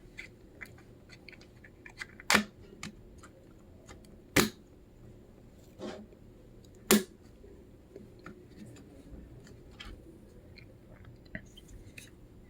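Small plastic model-locomotive parts being handled: four sharp clicks a second or two apart, with faint light ticks between them.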